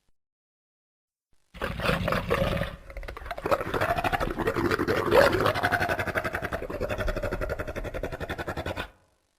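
Velociraptor creature sound effect: a short roaring call, then after a brief pause a long rattling growl that pulses rapidly, several beats a second, with its pitch wavering up and down, ending abruptly.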